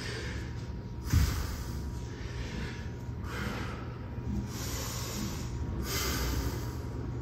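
A kettlebell set down on a floor mat with a dull thump about a second in, then a series of loud, hissing breaths, about one a second, as the lifter recovers from a set of kettlebell swings.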